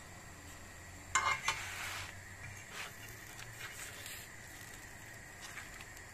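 A metal fork clinks and scrapes against a non-stick frying pan while lifting the edge of a lahmacun. The loudest cluster of clicks comes about a second in, with a few lighter taps later, over a faint sizzle of the flatbread cooking.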